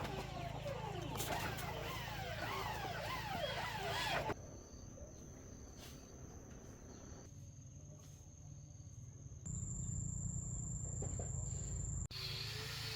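Insects giving a steady, high-pitched continuous trill, which steps slightly higher about halfway through. For the first few seconds a jumble of many overlapping chirping calls fills the sound before an abrupt change to the insect tone.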